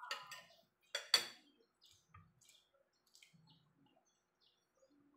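Metal fork and spoon set down on a ceramic plate: two sharp clinks close together about a second in. Faint bird chirps follow in the background.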